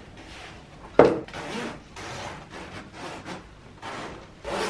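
Clothes rustling and rubbing as gardening clothes are pulled on, with one sharp knock about a second in.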